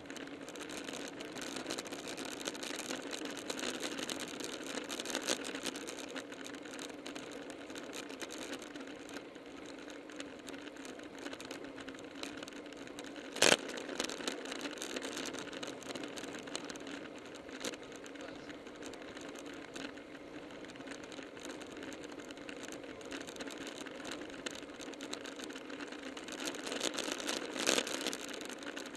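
Steady whirring rush of road bikes riding fast in a paceline: tyres on asphalt, drivetrains and wind on the microphone. A single sharp click about halfway through, and a brief louder gust or rattle near the end.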